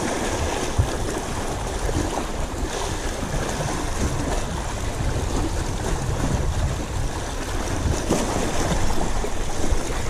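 Sea waves washing against shoreline rocks, with wind buffeting the microphone in an uneven low rumble.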